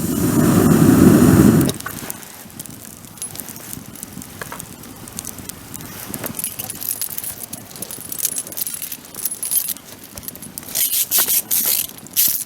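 Wood bonfire crackling with scattered small pops and snaps. A louder rushing noise fills the first second and a half, and a quick cluster of sharper crackles comes near the end.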